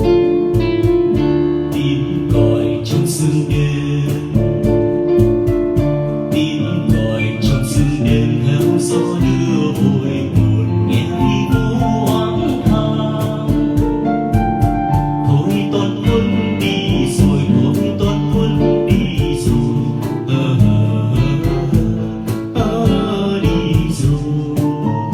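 Song accompaniment with plucked guitar over a steady beat, in a break between sung verses.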